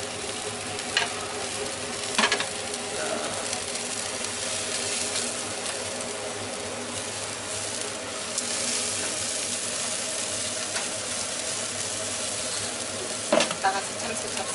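Skewered sparrows and quail sizzling on a wire-grate grill over glowing heat, with a few sharp clicks of tongs and skewers on the grate about one and two seconds in and twice near the end.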